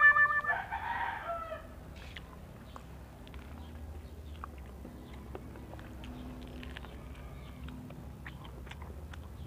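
Someone biting and chewing kernels off a boiled corn cob: faint, scattered soft clicks. About half a second in, a short call lasting about a second, falling in pitch at its end, is the loudest sound.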